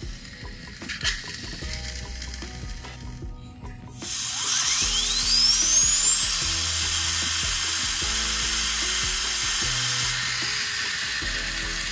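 Spray can firing through a straw nozzle into a metal airsoft gearbox shell: a loud, steady hiss that starts suddenly about four seconds in, with a thin whine climbing steeply in pitch and then holding high, easing off a little near the end.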